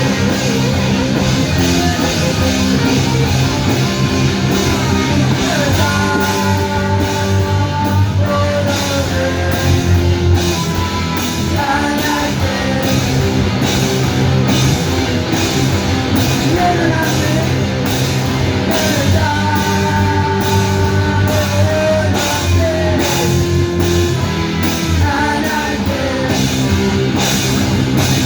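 Live heavy rock band playing loud and steady: guitars, bass and drums, with a voice singing over them.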